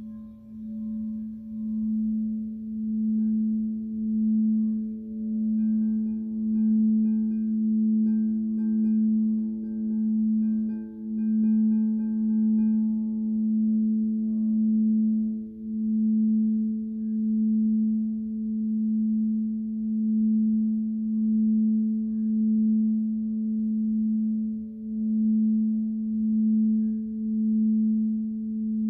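Frosted quartz crystal singing bowl played with a mallet worked around its rim, giving one steady low hum that swells and fades about every second and a half. A higher tone sounds alongside it from about three seconds in, for about ten seconds.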